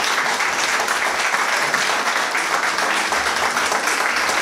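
Small audience applauding, steady dense hand-clapping.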